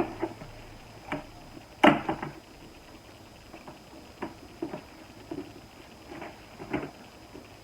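Plastic storage-bin parts being handled and fitted together: scattered knocks and clicks of hard plastic, with one loud knock about two seconds in.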